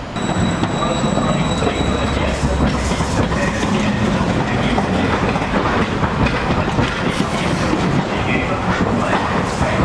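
Green Mover articulated low-floor tram rolling slowly past along the platform, with a steady rumble and clatter of its wheels on the rails.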